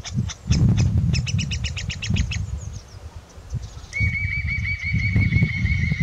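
Eurasian nuthatch singing: a quick run of high, sharp chirps, then from about four seconds in a fast, even trill of rising whistled notes. A low, uneven rumble runs underneath.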